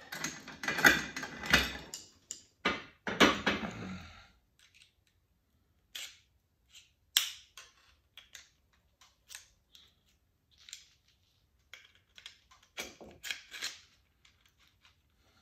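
Steel shift levers and plates of a Hurst shifter clattering as they are slid together onto the shifter body, then a string of separate light metallic clicks and taps as a hand tool works them into line.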